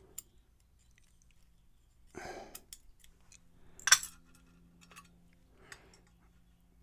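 Small metallic clicks and clinks of lock pins and a tool being handled while a pin-tumbler lock is taken apart, with one sharp metal clink about four seconds in.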